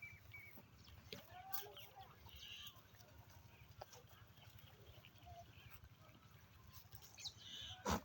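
Quiet farmyard ambience: faint, scattered calls of farm animals and birds with small clicks, and one sharp knock near the end.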